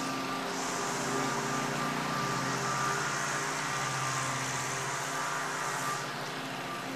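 Pressure-washing rig's engine running steadily, with the hiss of the water spray from the wand on the roof tiles. The hiss is stronger from about half a second in until near the end.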